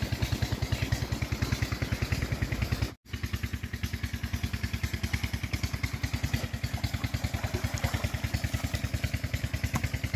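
Tubewell engine driving an irrigation pump, running with a steady fast thump of about seven or eight beats a second. The sound breaks off for an instant about three seconds in.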